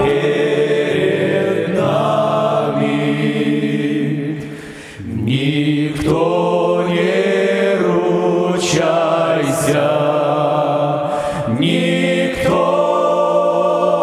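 Male vocal ensemble of seven voices singing a slow song in close harmony on sustained chords, briefly softening about five seconds in before the next phrase.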